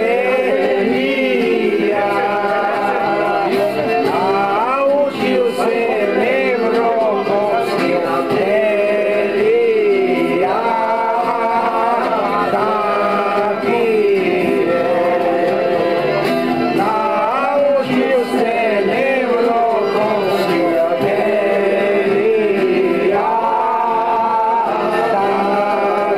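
A group of people singing a song together, men's voices prominent, several voices holding and bending long notes without a break.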